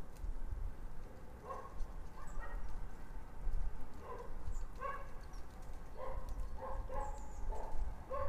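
A dog barking in a series of about ten short barks, spaced irregularly, over a steady low rumble.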